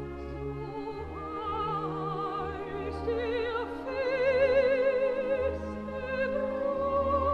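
Operatic singing with wide vibrato over an orchestra in an early Romantic opera finale, from a 1960 radio recording; the voice climbs to louder held notes about four seconds in.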